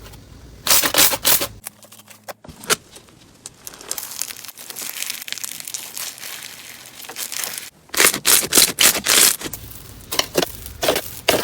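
Hands squeezing and stretching slime, giving clusters of sharp pops and clicks about a second in and again near the end, with a softer crinkly stretch in between.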